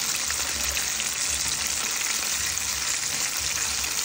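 Flour-dredged chicken pieces sizzling steadily as they fry in hot oil in a pan.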